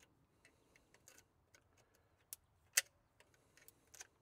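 Scattered faint metallic clicks and taps of a hand tool working at the distributor of a 1968 Ford F350's 360 V8, with the cap and rotor coming off to get at its fouled ignition points; one sharper click about two thirds of the way in.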